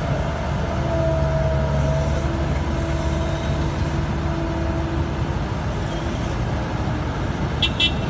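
Diesel engines of a HAMM 3410 road roller and a Kobelco tracked excavator running steadily, a deep drone with a few steady tones that fade out about five seconds in.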